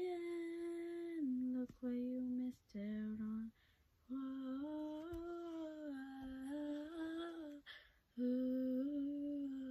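A girl's unaccompanied voice singing a slow wordless melody, humming-like, in long held notes across several phrases with short breaks for breath.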